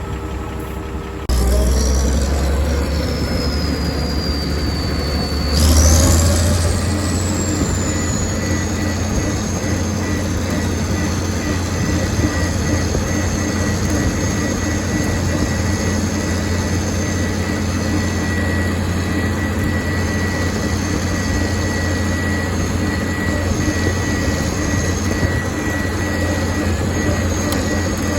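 Tractor engine running steadily under way, with a thin high whine over it. About six seconds in the engine speeds up, and the whine rises and then settles at a steady pitch.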